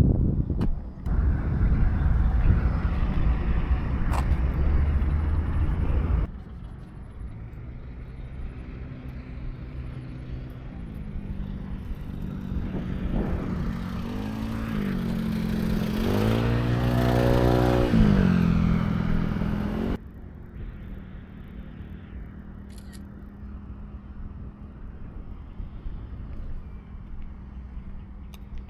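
Honda CBR150R's single-cylinder engine on the move with loud wind noise for the first few seconds, then quieter. About two thirds through, its note rises and falls as it is revved, then drops off suddenly to a low steady hum.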